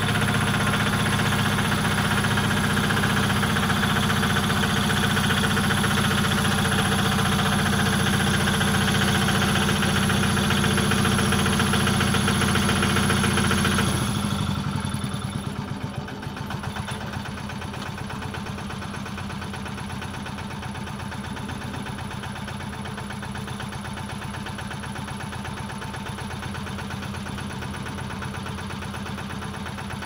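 Ferrari 72S two-wheel walking tractor's engine running steadily, then dropping to a quieter idle about halfway through.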